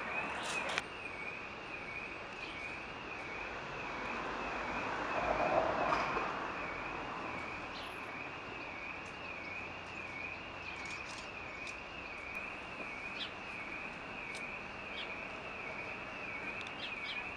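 Outdoor street background noise with a continuous high wavering tone that wobbles up and down a few times a second. A passing vehicle swells and fades about five to six seconds in, and a few faint clicks come near the end.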